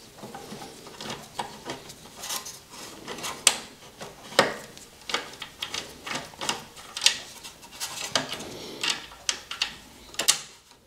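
Hand tools and exhaust fittings clicking and clinking irregularly as screws on a motorcycle's slip-on exhaust and heat shield are worked on.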